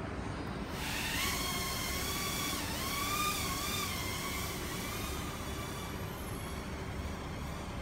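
Micro FPV quadcopter taking off and flying: a high motor-and-propeller whine that starts about a second in, wavers up and down in pitch with the throttle, and fades out after about five seconds as the quad flies away.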